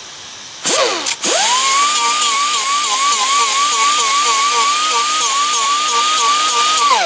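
Handheld electric power tool, blipped once, then spinning up to a steady high whine that wavers slightly in pitch under load and winds down at the end. It is cleaning up the metal around a broken exhaust manifold stud before welding.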